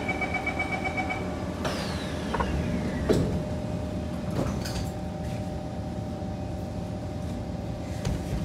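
Door-closing warning beeps of a Kawasaki C151 train for about a second, then the sliding doors closing with a falling whoosh that ends in a thud about three seconds in. A steady hum follows.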